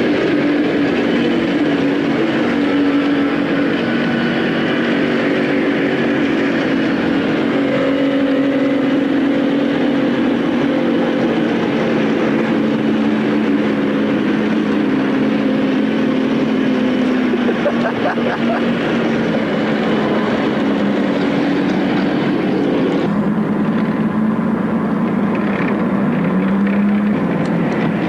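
A large vehicle engine running steadily nearby with a constant drone. About 23 seconds in its pitch drops, then climbs again a few seconds later.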